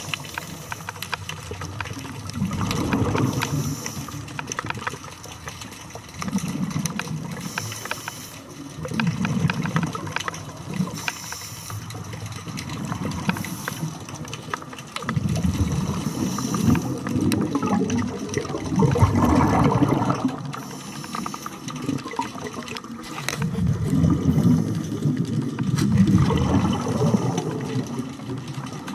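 Underwater bubbling and rushing from a diver's exhaled breath, swelling every three to four seconds, with faint crackling clicks throughout.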